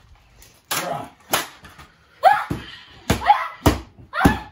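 Plastic toy lightsabers clashing in a mock sword fight: about six sharp clacks, roughly one every half-second to second, with short shouts from the boys between some hits.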